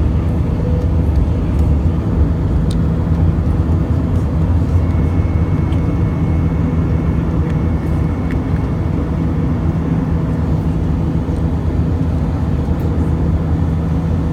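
Airbus A320's jet engines at climb power after takeoff, heard inside the passenger cabin as a steady, low, even drone.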